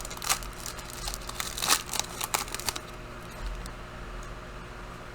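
Plastic wrapper of a trading card pack crinkling and tearing as it is ripped open, in quick crackles that stop about three seconds in.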